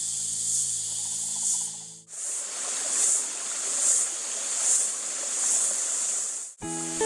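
Flowing creek water rushing steadily over rocks, with a high insect chorus swelling and fading about once a second. Guitar music plays over the first two seconds, cuts out sharply, and returns near the end.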